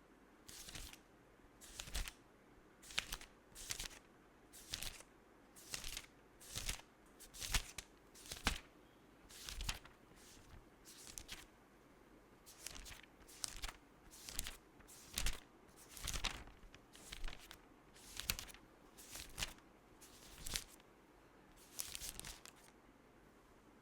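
Pages of a paper book being turned one by one, each turn a brief papery swish and flap, about one page a second.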